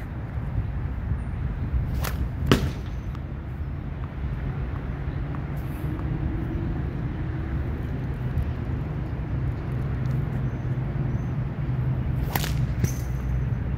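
Two sling throws of tennis balls. Each gives a sharp snap as the sling lets go, then a sharp hit about half a second later as the ball strikes the target. The first pair comes about two seconds in and the second near the end, over a steady low rumble.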